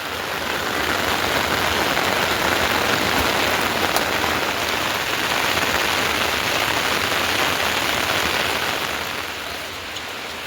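Heavy rain falling, a dense steady hiss that grows louder about a second in and eases near the end.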